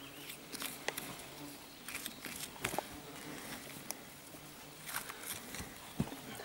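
Small scraping and crackling as a thin metal pick and fingers pry apart rotted, soil-caked wool greatcoat cloth, with scattered light clicks.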